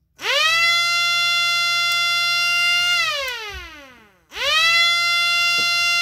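Miniature 3D-printed PLA air raid siren with a 2-inch rotor, driven by a size 380 DC motor. It spins up quickly to a steady high wail, holds about three seconds, then winds down with falling pitch. A little past four seconds in it spins up again and holds.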